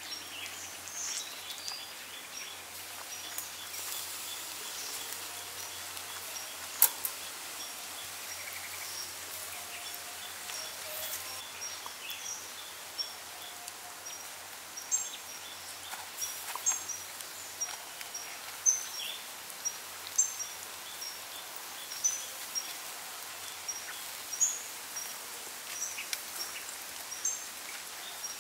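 Sauce-basted chicken sizzling on a charcoal grill, with a few sharp crackles and pops. Birds chirp repeatedly in short high calls in the background.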